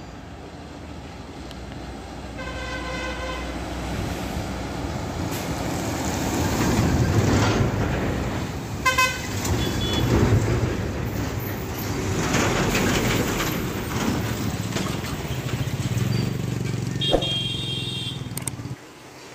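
Heavy diesel trucks passing close by. The engine and tyre noise builds to a peak partway through. Vehicle horns sound several times: one long blast about two seconds in, a quick run of toots around the middle, and another blast near the end.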